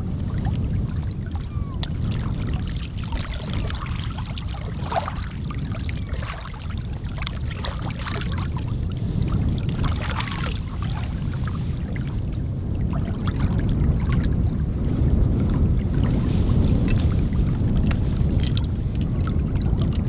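Lake water lapping on a rocky shore over a steady low rumble, with splashing and gurgling as a bottle is dipped and filled at the water's edge.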